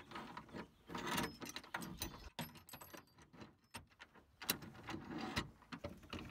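Metal mounting bracket, bolts and T-slot nuts being slid into a pickup truck's bed-rail track and fiddled by hand: irregular clicks, scrapes and rattles, with a few louder scraping bursts spread through.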